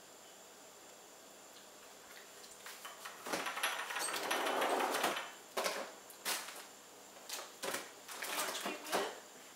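Plastic spoon scraping and stirring inside a small glass baby food jar: about three seconds in, a second and a half of steady scraping, then several short scrapes and taps against the jar.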